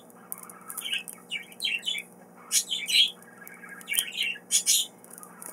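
Pet birds chirping in several short runs of quick high chirps, with brief quiet gaps between them.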